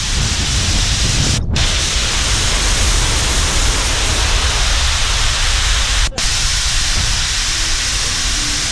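Drag race car engine at full throttle, heard as a loud, distorted rush of noise that overwhelms the microphone. It cuts out briefly twice, and faint music comes in near the end.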